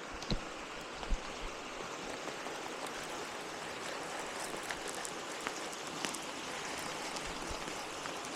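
Steady rush of water with a few light knocks about a second in.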